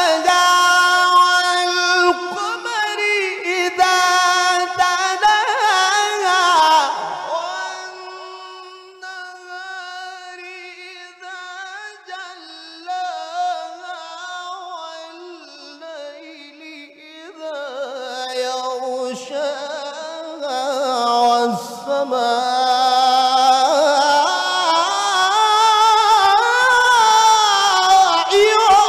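A male qari reciting the Quran in the melodic mujawwad style: one voice drawing out long, ornamented held notes. It drops to a soft, quieter passage in the middle and swells louder again toward the end.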